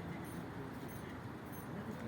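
Outdoor city ambience: a steady low rumble of distant traffic, with faint short high-pitched chirps repeating about every half second.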